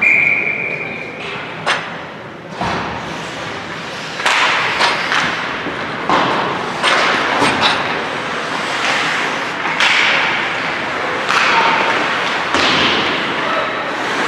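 A whistle blows one steady, high note for about a second at the start. Several sharp knocks follow, along with repeated bursts of noise in a large hall.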